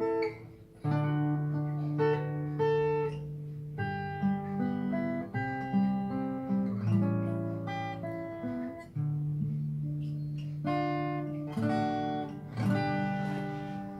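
Solo acoustic guitar played fingerstyle: a plucked melody over held bass notes, with a short pause just under a second in and a couple of strummed chords near the end.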